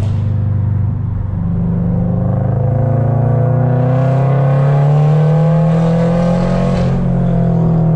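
2023 Toyota GR86's 2.4-litre flat-four engine through a straight-piped exhaust, heard from inside the cabin, pulling under acceleration. After a brief dip about a second in, its pitch climbs slowly and steadily, then levels off near the end.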